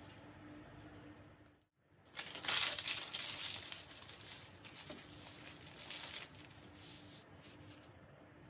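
Baking paper crinkling and rustling as it is wrapped around a rolled log of puff pastry. It starts suddenly about two seconds in, is loudest just after, and dies away about six seconds in, over a faint steady hum.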